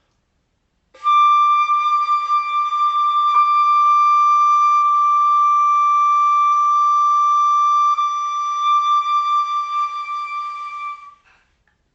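A single high flute note held for about ten seconds, starting about a second in, wavering slightly in loudness toward its close and then stopping.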